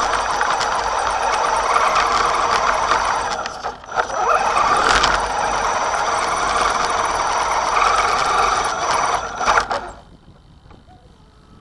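Axial Wraith RC rock racer's electric motor and two-speed gearbox, set in high gear, whining under load as it drives across grass, heard from a camera on the truck itself. It lets off briefly about three and a half seconds in, rises in pitch as it speeds up again, and cuts off suddenly near the end when the truck stops.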